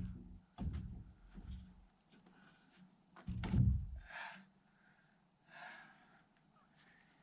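Heavy wooden thuds of a log knocking against the logs of a log-cabin wall as it is shifted into place: a few dull knocks, the loudest about three and a half seconds in.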